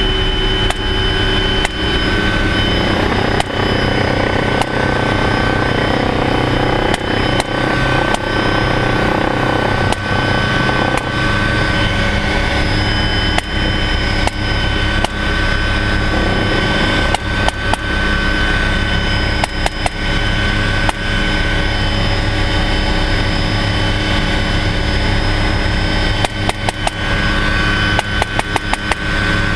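Helicopter engine and rotor running steadily from inside the cabin, with a whine held on a few steady high tones. Over it a scoped rifle is fired out of the door: single shots scattered through, then quick strings of shots about halfway and in the last few seconds.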